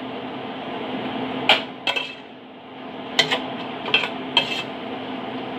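Metal spoon stirring chicken pieces in sauce in a stainless steel pot, clinking sharply against the pot about six times at uneven intervals.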